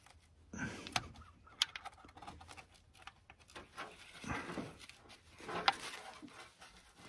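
Scattered faint clicks and light metallic ticks of hand work on a car engine, with sharp ticks about a second in and again near six seconds.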